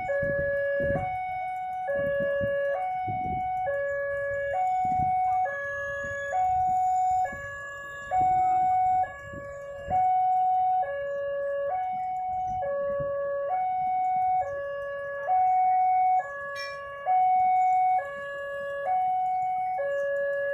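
Railway level-crossing warning alarm sounding its two-tone electronic chime: a low note and a higher note alternate steadily, each held just under a second. A low engine rumble from waiting motorcycles runs underneath.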